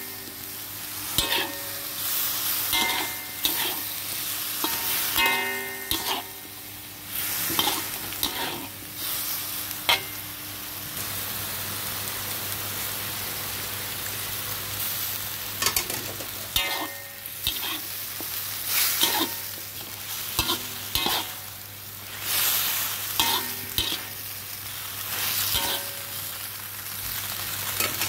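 Chicken and vegetables sizzling as they are stir-fried, with a metal spatula scraping and clattering against the steel pan in repeated bursts. Around the middle a pale liquid is poured in, and for a few seconds there is only the steady sizzle.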